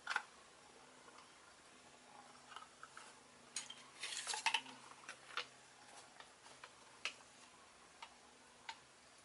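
Dark Cancer CH120SF Beyblade spinning on its semi-flat tip in a plastic stadium: a faint steady hum with scattered small, sharp clicks, bunched together about four seconds in.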